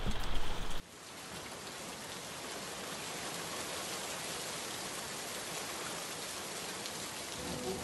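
Steady rain falling, an even hiss that starts abruptly about a second in. Near the end, soft sustained music notes come in.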